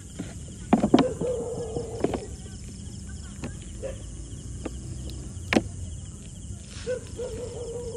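Sharp cracks and knocks of a clear plastic bottle being gripped and cut off a dog's head. The loudest come about a second in and again past the middle. A short, held whine is heard twice, and insects chirp steadily.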